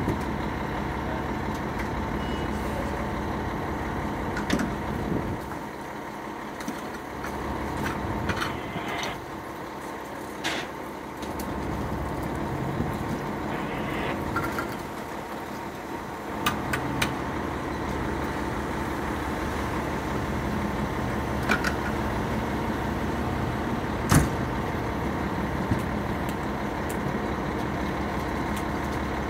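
Fire engine's diesel engine idling with a steady drone, with a few short sharp knocks and clatters scattered through it.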